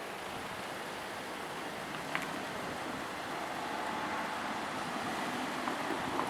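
Steady rushing noise of a passing vehicle, growing slightly louder, with a single sharp click about two seconds in.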